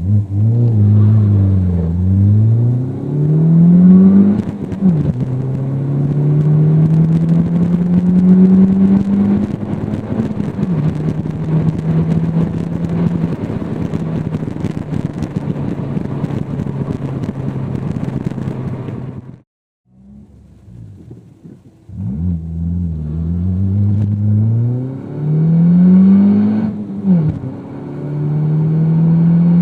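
Peugeot 208 with a Supersprint full sports exhaust system, heard from inside the cabin, accelerating through the gears. The engine note rises, drops at gear changes about four and ten seconds in, then holds steady. After a short break about two-thirds of the way through, it accelerates again and shifts once more.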